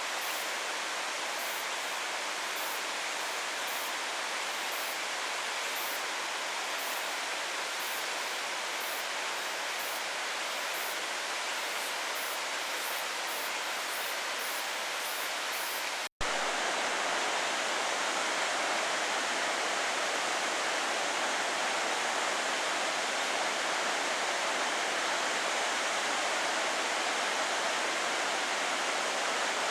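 Steady rushing of a waterfall's falling water. It breaks off for an instant about halfway and resumes slightly louder. In the first half, faint high-pitched chirps sound now and then over the rush.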